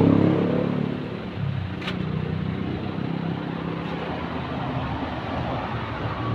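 A motor vehicle engine running steadily, louder at the start and easing down within the first second. A single sharp click comes about two seconds in.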